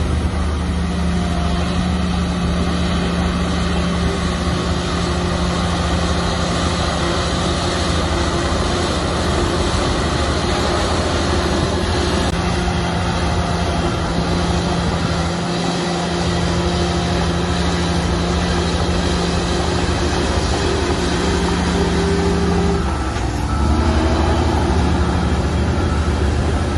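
Heavy diesel engine of earthmoving machinery running steadily under load. About three quarters of the way through the engine note dips and wavers briefly, then steadies again.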